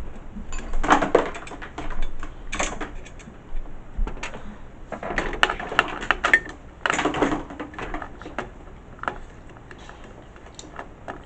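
Clicking and rattling of hard drive, cables and case parts being handled inside an open desktop PC case, in several short clusters of clicks.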